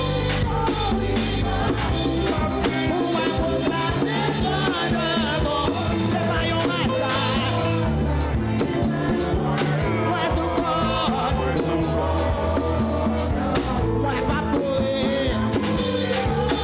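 Worship music from a live church band with a steady beat, with singing over it.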